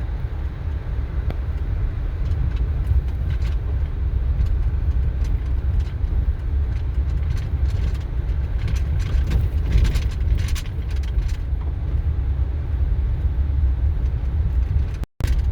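Off-road vehicle driving on a rough dirt road: a steady low rumble of engine and tyres, with scattered short knocks and rattles from the bumpy track.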